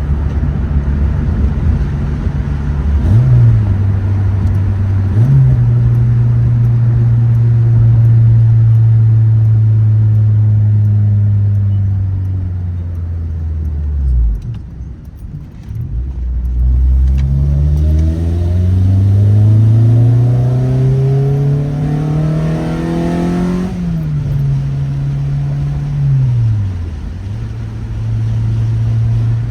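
2006 Honda Civic Si's 2.0-litre four-cylinder engine heard from inside the cabin while driving through the gears. The revs step up twice early on, hold and sag slowly, then fall away almost to nothing. Midway they climb steadily under acceleration before dropping sharply at a gear change, with one more brief dip near the end.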